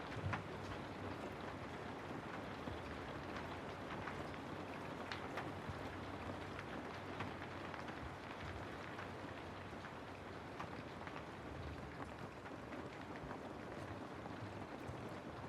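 Steady rain falling through forest trees, an even hiss with many individual drops ticking and pattering on leaves.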